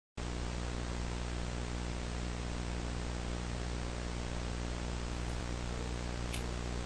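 Steady static hiss with a low electrical mains hum underneath, with a faint click near the end.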